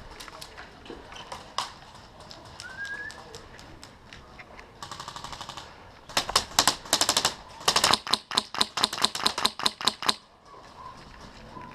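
Airsoft guns firing: a quieter, fast full-auto rattle about five seconds in, then two loud strings of sharp shots at about six a second. A short rising chirp comes a few seconds earlier.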